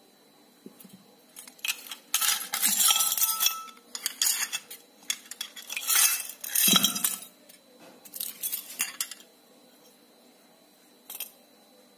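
Small metal and plastic parts from a dismantled electricity meter clattering and clinking against a glass jar as they are dropped in and shaken, in several bursts, with a single clink near the end.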